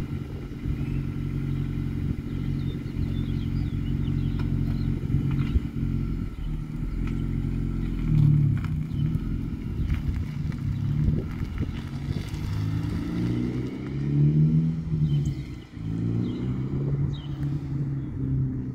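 2012 Honda Civic Si's 2.4-litre four-cylinder engine through a muffler-delete exhaust with the stock resonator left on, running steadily at idle and then pulling away, rising in pitch and loudness in a few revs as it accelerates, about eight and fourteen seconds in.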